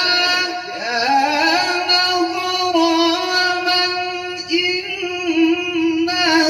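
A man's voice reciting the Qur'an in the melodic tilawah style into a microphone, drawing out long ornamented notes with vibrato and a rising run about a second in.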